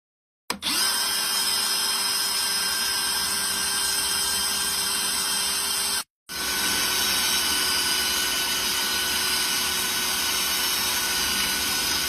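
Power drill running at a steady speed, drilling into a new galley sink. It starts about half a second in and breaks off briefly about six seconds in before going on.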